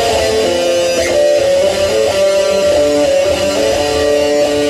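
Electric guitar being played, a high note held for long stretches while lower notes shift beneath it.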